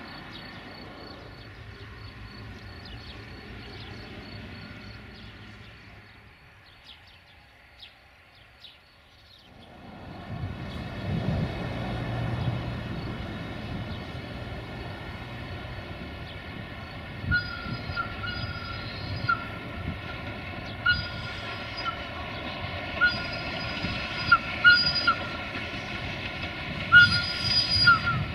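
Sulzer-engined 060-DA (LDE2100) diesel-electric locomotive approaching at the head of a train of tank wagons. Its diesel engine runs with a steady whine, growing louder after about ten seconds. From about the middle on, short wheel squeals come every second or two as the train rounds the curve.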